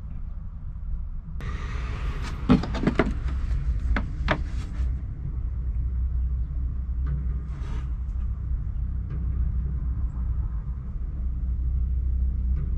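Steady low rumble throughout, with a run of sharp clicks and knocks between about one and a half and four and a half seconds in and a brief rustle near eight seconds, typical of hands and a camera handling things at close range.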